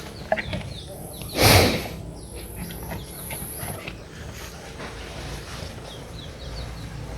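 A big cow's breath: one loud, forceful whooshing exhale through the nostrils, about a second and a half in, lasting about half a second.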